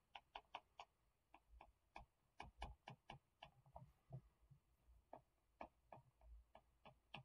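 Faint, irregular clicks of a stylus tip tapping on a tablet's glass screen while handwriting, several a second.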